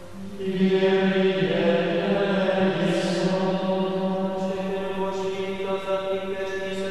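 Trappist monks chanting in unison in their choir stalls. The men's voices swell about half a second in and then hold long, steady notes.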